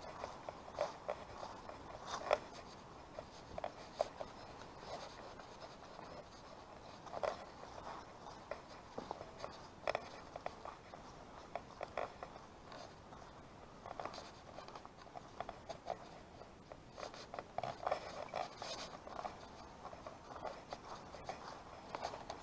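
Footsteps of a person walking over paving and grass: an uneven run of soft scuffs and scrapes.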